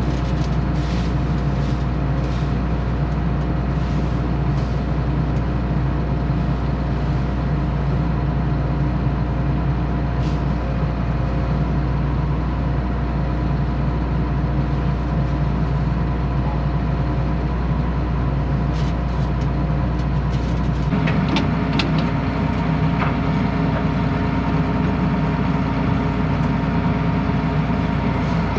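John Deere combine running steadily, with a constant low rumble and a held hum. About twenty-one seconds in, the low rumble drops and the sound shifts higher, as the machine's running changes.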